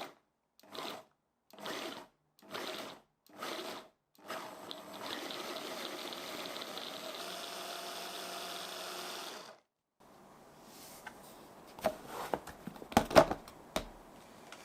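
Food processor pulsing five short times, then running steadily for about five seconds and cutting off, cutting cold butter into flour for pie dough. Near the end come a few sharp knocks and clicks.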